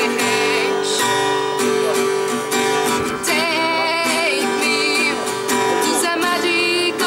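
A woman singing a song with acoustic guitar strummed alongside.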